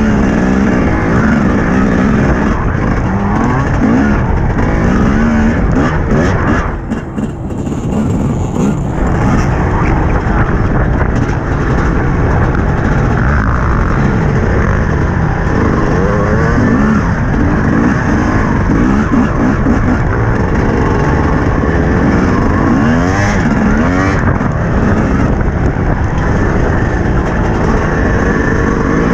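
TM 250 motocross bike's engine revving up and down as it is ridden round a dirt track, heard close from the rider's helmet. The throttle shuts off briefly about seven seconds in, then the engine picks up again.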